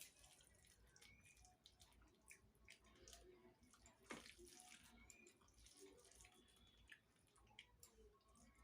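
Faint eating sounds: small wet clicks and smacks of rice and fish curry being eaten, with one sharper click about four seconds in.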